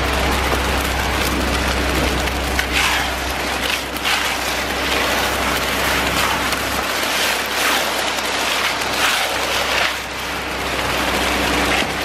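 Wet concrete pouring off a ready-mix truck's chute and sloshing into a slab form, a steady rushing hiss over the low running of the truck's engine. Rakes and shovels scrape through the concrete every second or two.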